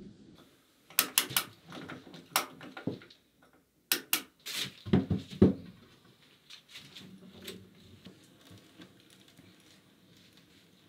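Hand woodworking with a carpenter's brace and pine boards: a cluster of sharp wooden knocks and clicks with a few dull thumps in the first half, then softer ticking and creaking as the brace turns its bit into the wood.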